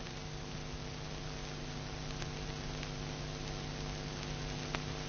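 Steady low hum under an even hiss, with a few faint clicks: the background noise of an old film soundtrack.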